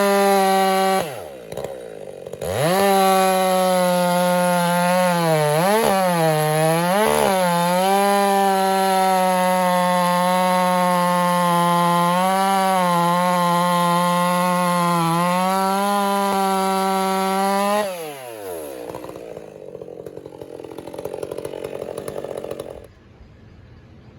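Stihl MS 400 C two-stroke chainsaw revving up twice, then held at full throttle as it bucks a red oak log for about fifteen seconds, the pitch dipping briefly twice a few seconds in. It then drops off the throttle, and a quieter sound follows until it stops shortly before the end.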